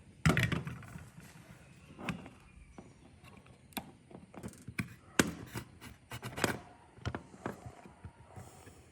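Irregular clicks, clinks and knocks of hand tools and small metal parts being handled at the workbench. The loudest knocks come just after the start and about five seconds in.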